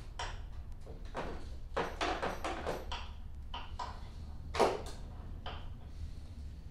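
Light clicks and metal clatter of parts being fitted by hand on a new Cub Cadet two-stage snowblower as the shift rod is hooked up, with one sharper, louder knock about four and a half seconds in. A steady low hum runs underneath.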